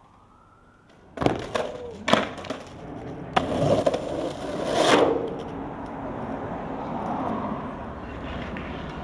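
Skateboard on asphalt: a couple of sharp clacks of the board about a second and two seconds in, then the wheels rolling loudly over rough road, loudest about three to five seconds in, settling into a steady rolling rumble.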